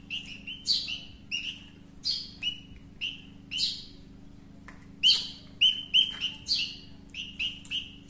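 Nestling birds begging while being hand-fed, giving many short chirps, each a quick falling note. The chirps come in irregular spells and are most frequent and loudest about five seconds in.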